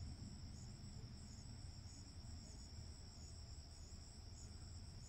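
Faint, steady insect chirping, high-pitched and pulsing about twice a second, over a low hum.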